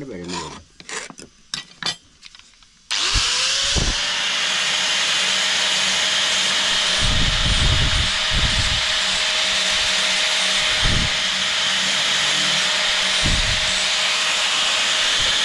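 A few quick strokes of a hand file on a steel knife blade. About three seconds in, an electric angle grinder switches on, spins up within a second to a steady high whine and runs on as it grinds the blade.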